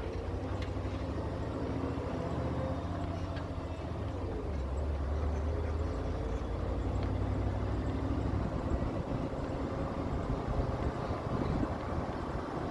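A vehicle engine running under a steady low rumble, its pitch rising and dropping back a few times.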